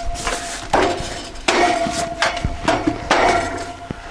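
Sheet-metal top panel of an outdoor heat-pump condenser unit being knocked and pressed into place. It gives a series of sharp metallic bangs, each ringing briefly.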